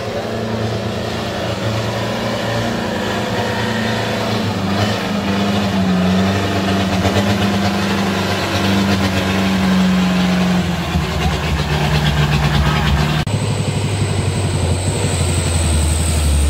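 Heavy truck engine running under load, its pitch shifting in steps, with an abrupt change about thirteen seconds in.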